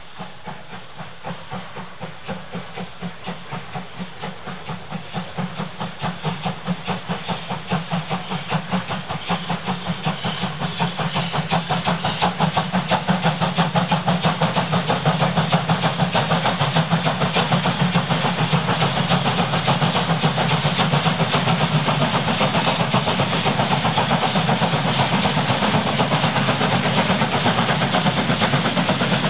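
Steam locomotive exhaust chuffing in a steady rhythm, about two beats a second at first. It grows louder over the first dozen seconds as the engine approaches, then runs on as a loud, dense, hissing beat.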